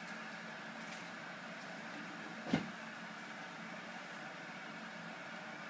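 Steady low hum with a hiss, with a single short knock about two and a half seconds in.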